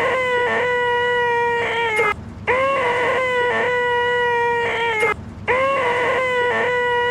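A man's voice making the nasal, high-pitched 'eeeeh' screech known as the most annoying sound in the world. It is looped: each screech lasts about two and a half seconds and starts with a short upward scoop in pitch, repeated with brief gaps, between two and three times here.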